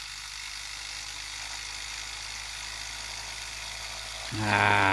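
Small 3D-printed pulse motor's rotor spinning at high speed, around 2,500 RPM, giving a steady whir with a low hum underneath. A man's voice breaks in briefly near the end.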